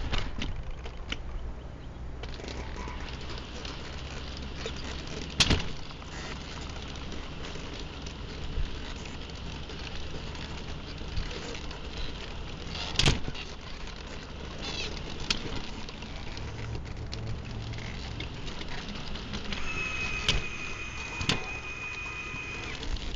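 telemax tracked robot climbing down metal stairs: a few sharp knocks several seconds apart as its tracks land on the steps, over a low steady hum. Near the end a steady high whine lasts about three seconds.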